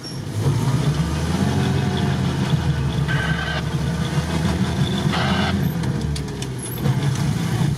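UAZ-469 engine heard from inside the cab, running steadily at low revs as the truck creeps through snow. Two short hissing scrapes come about three and five seconds in.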